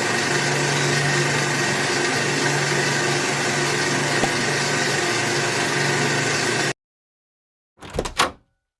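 A small motor running steadily with an even hum and hiss, cutting off abruptly near the end; a brief separate sound follows about a second later.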